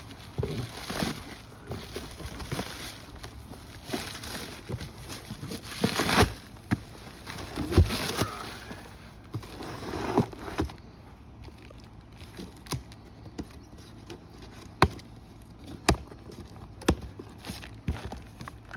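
Packing tape being ripped and cut off a cardboard shipping box, with rustling and scraping for about the first ten seconds. After that come scattered sharp clicks and knocks as the box is handled.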